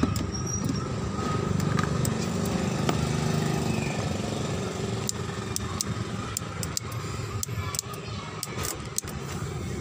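Steady low engine rumble, with scattered light clicks and ticks in the second half.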